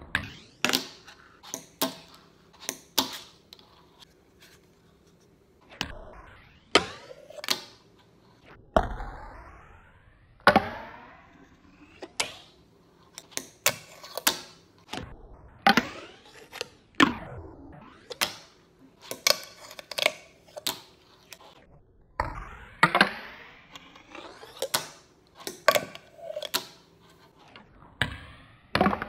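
Fingerboard tricks on a hard tabletop and a small plywood ramp: irregular sharp clacks of the little deck popping and landing, with short stretches of the wheels rolling across the surface between them.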